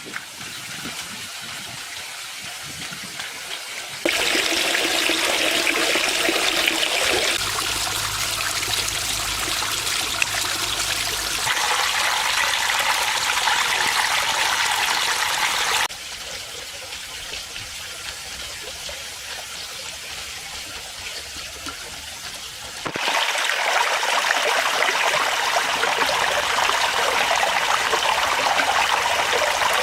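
Water running and trickling over a garden pond waterfall. The sound is steady within each stretch but jumps abruptly louder or quieter and changes brightness several times.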